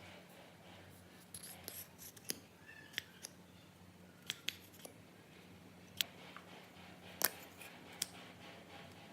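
Slime being worked by hand, giving about ten sharp, irregular clicks and snaps over a faint steady hum.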